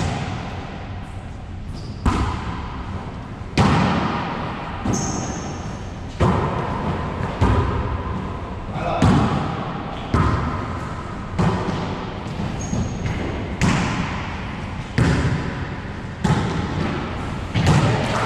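Wallyball ball being struck by hands and rebounding off the court walls and floor. It makes sharp slaps about once a second, each echoing in the enclosed court.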